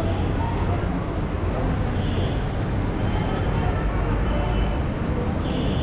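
Steady low rumble of road vehicles and traffic.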